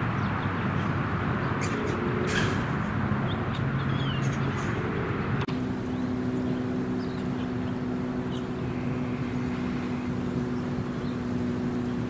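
Outdoor street ambience: a steady rush of passing traffic with a few short bird chirps. About five seconds in, the sound changes abruptly to a steadier background with a constant low hum.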